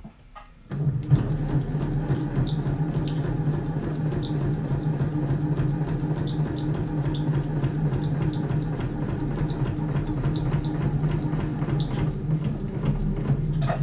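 Electric domestic sewing machine running steadily at an even speed, its motor humming and the needle ticking rapidly as it punches stitches through a paper practice sheet. The machine starts under a second in and stops shortly before the end.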